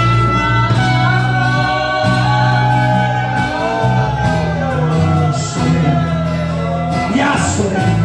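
Live worship music with singing over guitar and a steady bass line, in a large hall.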